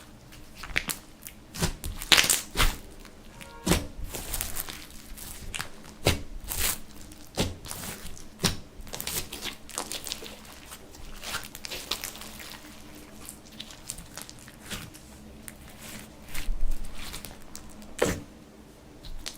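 Slime being squished and stretched by hand, giving irregular sticky pops, clicks and crackles.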